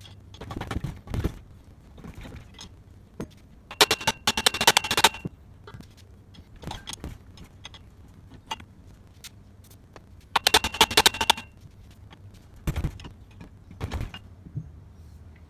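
Metal clanking and rattling as a pry bar works a clutch that is seized on a mower engine's shaft, with two bursts of fast metallic rattle about a second long, one about four seconds in and one about ten seconds in, and scattered single knocks between them.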